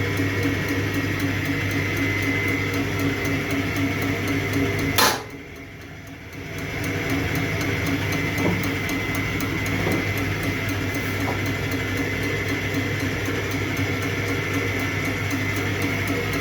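Diesel injector test bench running a Bosch common-rail injector: a steady machine hum with a fast, even ticking. About five seconds in, a sharp click, then the sound drops away for a second or two and builds back up to the same steady running.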